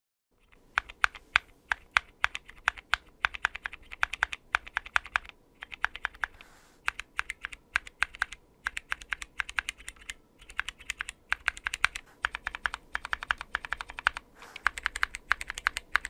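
Typing on a mechanical keyboard fitted with Gateron optical tactile switches, some lubed and some stock: fast runs of key clacks with a few short pauses.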